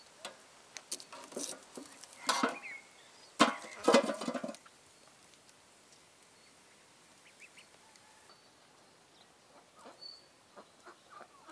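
Domestic fowl calling: two loud calls, about two and three and a half seconds in, then quiet with a few faint small clicks.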